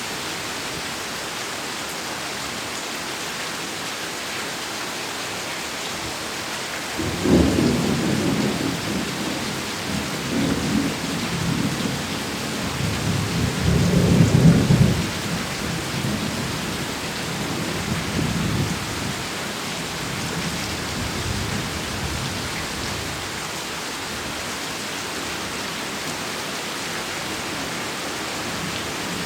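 Heavy rain falling steadily, with a clap of thunder breaking about a quarter of the way in and rumbling in waves, loudest around the middle, then dying away.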